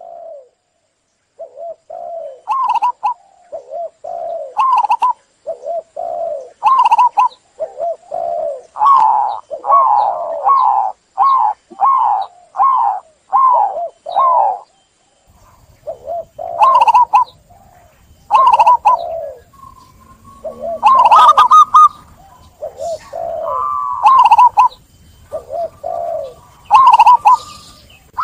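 Zebra dove (perkutut) cooing: repeated series of short, rolling coos, the notes coming quick and evenly spaced through the middle, with calls overlapping near the end.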